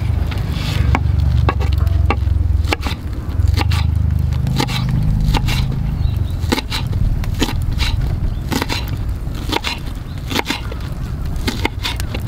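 A knife chopping a leek on a wooden cutting board: sharp, irregular knocks of the blade through the stalk onto the board, roughly two a second, over a steady low rumble.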